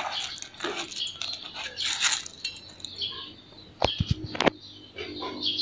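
Dry uncooked rice scooped with a plastic measuring cup and poured into a metal pot, the grains rustling and pattering. A few sharp clicks come a little after the middle, about four seconds in.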